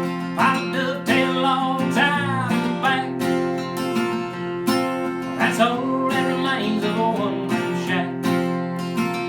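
Country song played on a strummed acoustic guitar, with a wavering melody line coming in over the chords twice.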